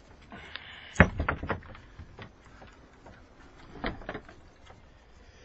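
Master Lock padlock and the shed door's latch being worked open: a quick run of sharp metal clicks and knocks about a second in, then another knock near four seconds.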